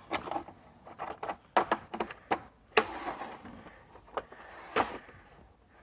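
Metal hand tools clinking and knocking as they are handled and moved about in a steel toolbox drawer: a dozen or so irregular clicks and clunks, the sharpest about three seconds in.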